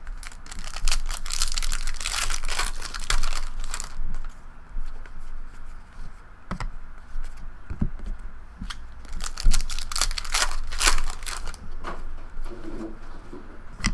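A trading-card pack wrapper being torn open and crinkled, in two spells: one near the start and another about two-thirds of the way in, with light clicks and taps between.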